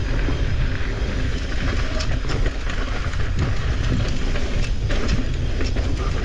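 Mountain bike descending a rough, choppy dirt trail: a continuous low rumble of tyres over the ground, with the bike rattling and giving irregular sharp clacks over the bumps.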